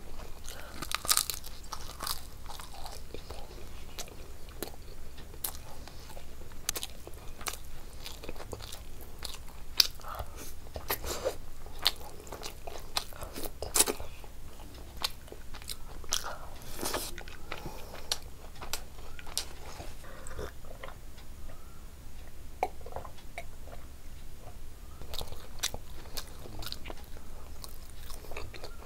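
A person eating rice and curry by hand, close to the microphone: steady chewing with many short, sharp crunches and mouth clicks scattered throughout.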